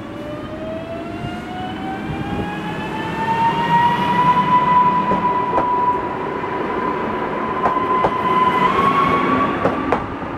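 Newag Impuls electric multiple unit pulling away from the station. Its traction motors whine, rising in pitch over the first few seconds, holding steady, then stepping up once more near the end as it keeps accelerating. A running rumble sits beneath, with a few sharp clicks from the wheels in the second half.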